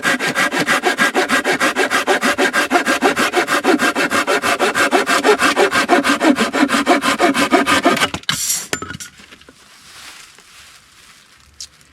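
A hand saw cutting through a log at a scored mark, with quick, even back-and-forth strokes. The sawing stops about eight seconds in, followed by a brief clatter.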